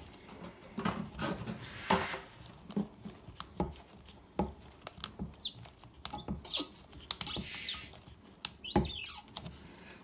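Plastic coupling nut of a braided toilet supply line being hand-threaded onto the fill valve shank: scattered small clicks and scrapes, with short high squeaks of nitrile-gloved fingers on the plastic in the second half.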